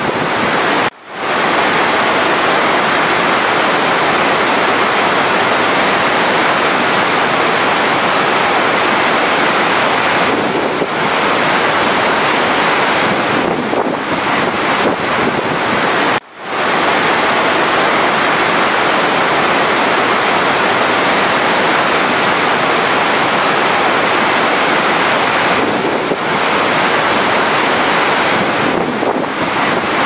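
A large waterfall's heavy water pours down in an even, steady rush. The sound cuts out abruptly for a moment about a second in and again about halfway through, then returns.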